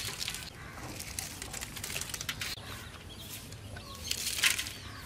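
Whole dry spices (cinnamon sticks, cardamom, then cloves and black peppercorns) dropped by hand into a large aluminium pot onto sliced onions, pattering and rustling in short bursts, loudest about four seconds in as the cloves and peppercorns are poured. Faint bird chirps behind.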